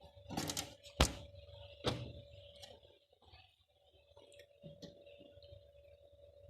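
A few sharp clicks and knocks, the loudest about a second in and another just before two seconds, over a faint steady tone.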